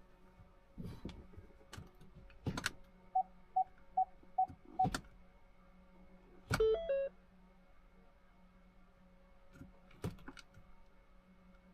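Five short, evenly spaced electronic beeps, about two a second, followed a couple of seconds later by a brief stepped electronic chime. Scattered clicks and knocks come before and after, over a faint steady hum.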